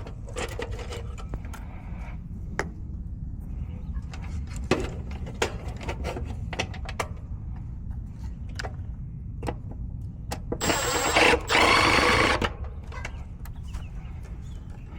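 Scattered sharp clicks and knocks of hand work on an air-conditioner condensing unit, over a steady low hum. A loud noisy burst of about two seconds comes near the end.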